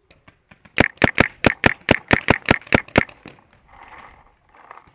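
Shocker RSX paintball marker firing a quick string of about a dozen shots, roughly five a second, then stopping.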